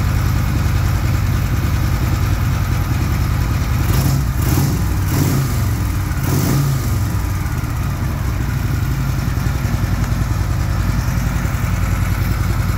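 1970 Harley-Davidson V-twin engine with a Tillotson carburetor running steadily at idle. The throttle is blipped twice, about four and six seconds in, with the revs rising and falling each time before it settles back to idle.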